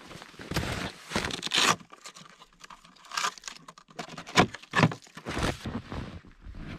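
Handling noises: a winter jacket rustling and crumpling, then a few sharp knocks and clunks as gear is handled.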